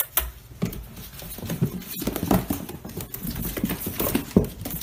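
A litter of young puppies scrabbling in a plastic tub, their claws scratching and tapping on the plastic, with a few short high squeaks and whimpers.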